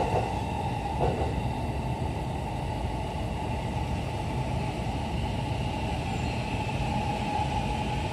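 Interior running noise of a JR East E231-series commuter train: a steady rumble of the car rolling along the track, with a high ringing tone that fades during the first second.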